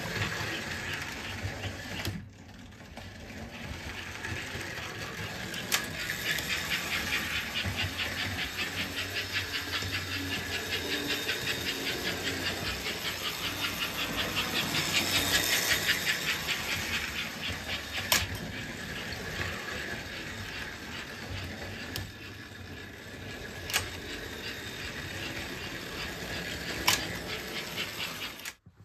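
American Flyer S-gauge toy steam locomotives running on the layout: an electric motor whirring with a rapid, even chuffing rhythm that swells to its loudest about halfway through, then fades. Sharp clicks come now and then.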